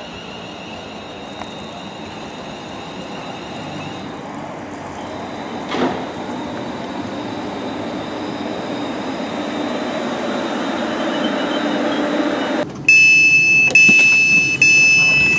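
A Class 350 Desiro electric multiple unit running into the platform, its running noise and low motor whine growing steadily louder as it approaches. Near the end, the train's door-open button gives loud electronic beeps, about three in a row, as it is pressed to open the doors.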